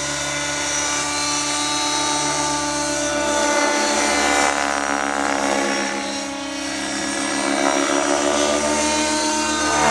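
Align T-Rex 700N nitro RC helicopter in flight: its two-stroke glow engine and rotor give a continuous high whine whose pitch slides up and down while the level swells, dips around the middle and rises again near the end.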